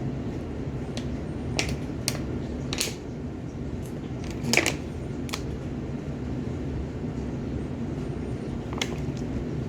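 Slime being kneaded and stretched by hand, giving a few short sticky clicks and pops, the loudest about halfway through. A steady low hum runs underneath.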